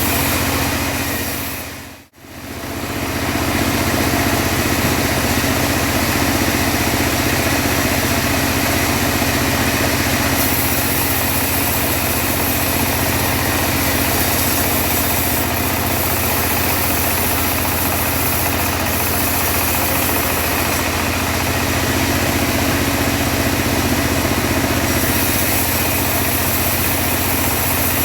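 Engine of a homemade bandsaw sawmill running steadily. The sound fades out to near silence about two seconds in and comes back within a second or two.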